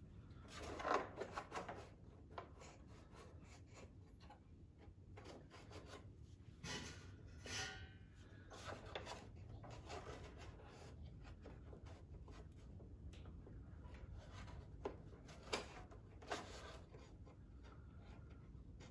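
Phillips screwdriver working the screws of the metal carburetor bracket on a riding mower engine: faint scraping and rubbing with small metal clicks and taps. A few are louder, about a second in, around the middle and past three-quarters of the way through.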